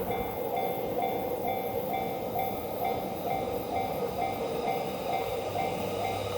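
Japanese railway level-crossing alarm ringing its electronic bell, a short tone repeating about twice a second, over the rumble of a passing train.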